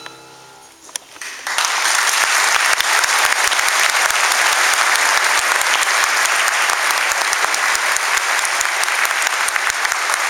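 The last notes of a musical performance fade out, and about a second in a large audience breaks into applause. The dense, steady clapping then carries on at full strength.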